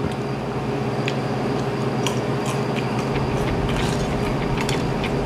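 A steady low mechanical hum, with a few short clicks over it.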